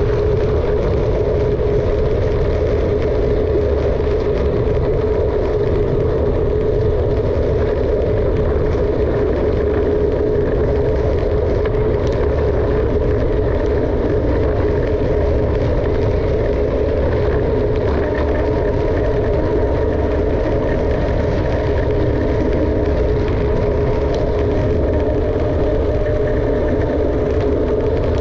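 Steady rush of wind over the microphone and tyre hum from a mountain bike rolling fast downhill, holding one even level with no breaks.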